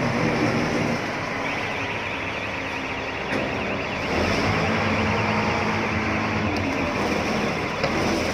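Motor vehicle engine running steadily amid street noise, with a couple of short knocks as a wheeled speaker case is handled.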